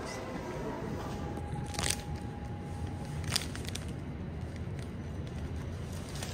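Elevator car running, a steady low rumble, with a faint steady tone for about three seconds. Two sharp clicks come about two seconds in and again about a second and a half later.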